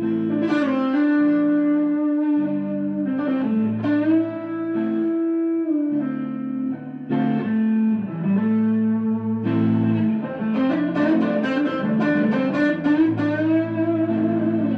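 Background music led by guitar, with sustained notes that bend in pitch.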